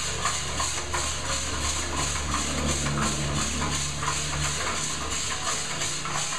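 A small drum coffee roaster turning over a gasifier-fed gas burner: a steady rushing hiss from the burner and tumbling beans pulses evenly several times a second with the drum's rotation. A low hum underneath fades about five seconds in.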